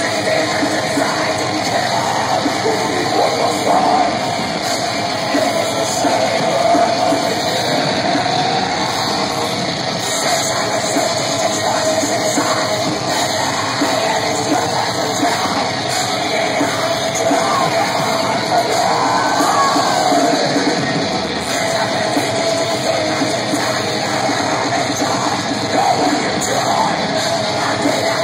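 Black metal band playing live: distorted electric guitars and drum kit with a harsh yelled vocal over them, a loud, unbroken wall of sound.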